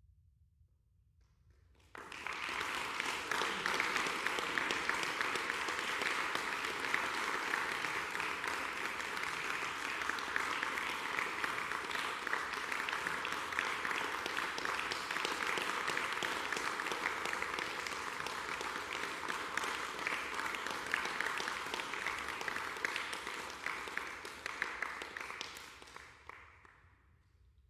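Audience applauding in a hall, breaking out suddenly about two seconds in, holding steady, and dying away near the end.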